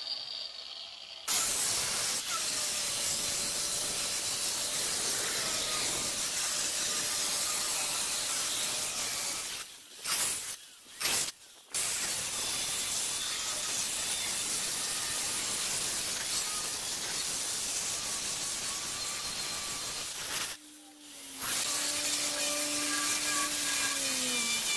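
Handheld electric stone saw with a diamond blade wet-cutting a granite countertop slab: a loud, steady grinding hiss with a faint motor whine. The cut starts about a second in and breaks off briefly a few times, near the middle and again later, before resuming.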